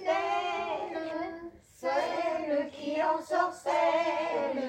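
Elderly women's choir singing a song in long held notes, with a short break for breath about a second and a half in.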